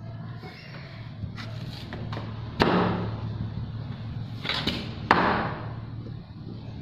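Cleaver chopping through coconut heart onto a wooden chopping block: a handful of sharp chops, two of them much louder than the rest, with lighter cuts between.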